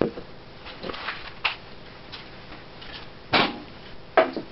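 Several short bumps and rustles close to the microphone, as a kitten noses and brushes against the camera; the loudest comes about three and a half seconds in, with another just after four seconds.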